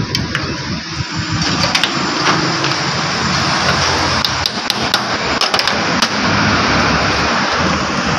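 Scattered sharp metal clicks and taps of hand tools on a power window motor's gear housing, over a steady mechanical background noise.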